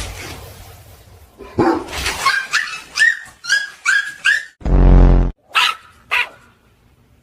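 Dogs barking: a small dog yaps rapidly in short, high-pitched yaps, about six in a row. A deep, loud bark or growl breaks in, then the small dog gives two more yaps.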